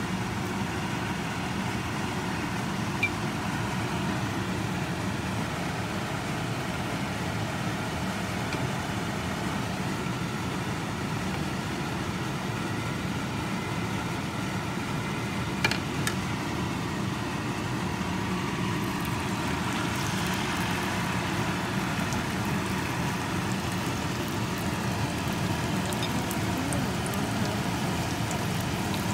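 Hot oil sizzling in a small pot as battered banana pieces deep-fry, over a steady mechanical hum. Two sharp clicks, about three seconds in and about halfway through.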